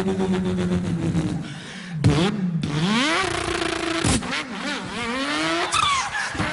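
A man imitating a car engine with his voice: a steady, slowly falling drone, then the pitch climbs in a series of rising revs, each cut by a brief break like a gear change.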